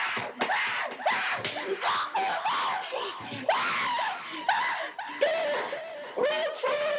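Repeated high-pitched yelping cries, each a short wail that rises and falls, about two a second.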